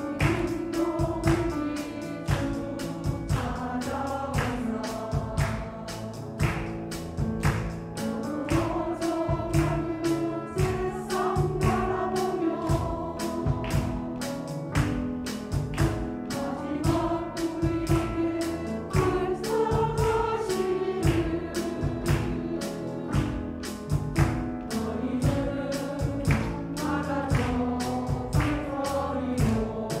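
Women's church choir singing a Korean gospel hymn over an accompaniment with a steady percussive beat.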